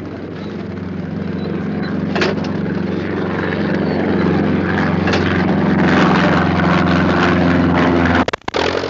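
Stampe biplane's piston engine running at a steady speed, growing louder over the first few seconds and then holding, broken by a few brief dropouts near the end.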